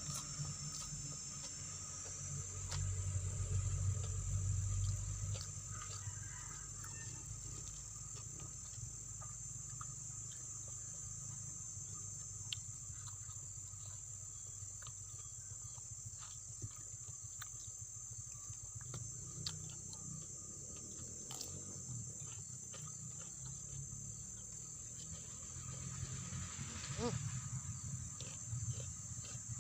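Insects droning in a steady high-pitched chorus, with scattered faint clicks and a low rumble beneath.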